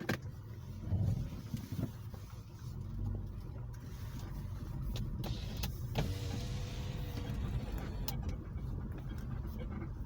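Subaru Outback 3.0's flat-six engine running with a steady low rumble, broken by a few sharp clicks; the owner calls it a bad sound.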